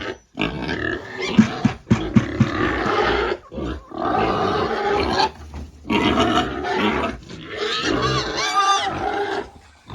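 Pigs calling noisily in long, dense stretches broken by short pauses, with a few sharp knocks between about one and two and a half seconds in.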